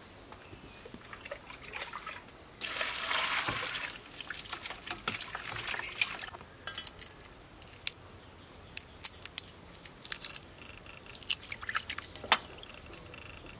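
Water sloshing and splashing in a stainless steel bowl as hands wash raw shrimp. There is a louder stretch of splashing about three seconds in, then scattered small splashes and drips.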